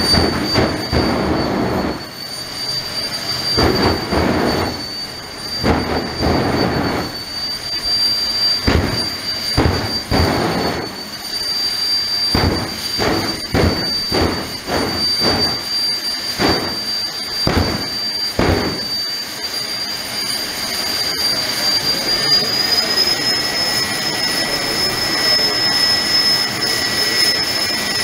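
Jet dragster's turbine engine running with a steady high whine, broken by a series of some twenty short, loud afterburner blasts over the first two-thirds. Then the engine runs on without blasts, its whine climbing slightly in pitch near the end.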